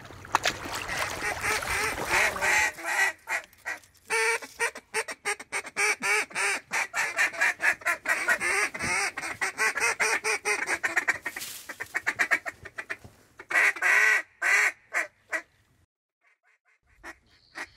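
Ducks quacking in a fast, almost unbroken run of short calls, with a brief pause about three seconds in, stopping a couple of seconds before the end.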